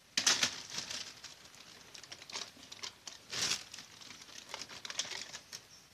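Plastic bag crinkling and rustling as it is handled, with louder rustles just after the start and again about three and a half seconds in.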